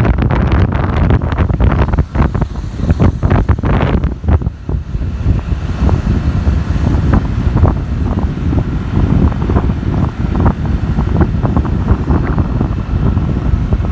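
Wind buffeting the microphone on a moving motorcycle: a loud, gusty low rumble with crackling, harshest over the first four seconds or so.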